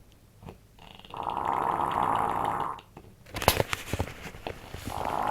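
An elderly woman snoring: two long, rattling snores, one about a second in and another starting near the end, with a brief burst of crackling clicks between them.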